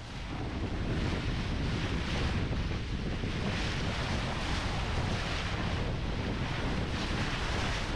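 Wind buffeting the microphone on the deck of a sailboat under way, over the rush of the bow wave through the sea, with soft surges as the water washes past. It fades in over the first second.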